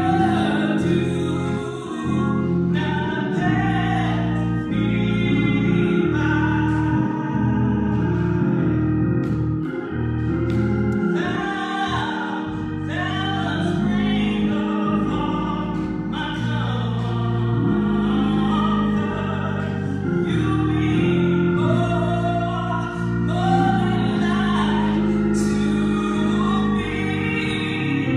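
A woman singing solo into a microphone, with sustained organ chords accompanying her in a gospel style.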